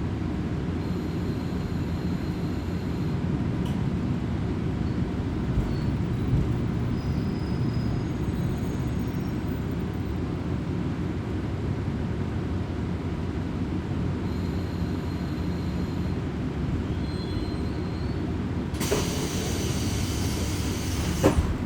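Steady low rumble of a Kominato Railway diesel railcar, heard from inside the passenger cabin. Near the end a loud hiss of air comes in for a couple of seconds and stops with a click.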